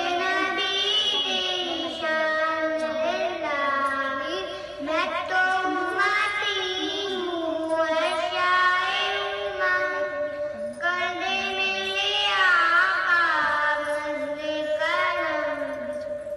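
A boy sings a naat, a devotional song in praise of the Prophet, in melodic phrases of a few seconds with long held notes. A steady hum runs underneath.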